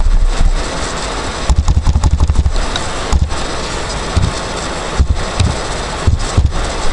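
Computer keyboard keys clicking: a quick run of taps about one and a half seconds in, then a few single keystrokes spread through the rest, over a steady low rumble.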